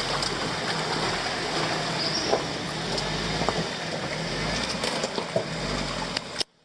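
Jeep Wrangler running at low speed, a steady rumble under a hiss of driving noise, with a few faint ticks. It cuts off abruptly near the end.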